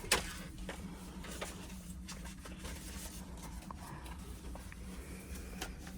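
Steady low hum of a quiet cabin with a few light clicks and taps, the sharpest right at the start.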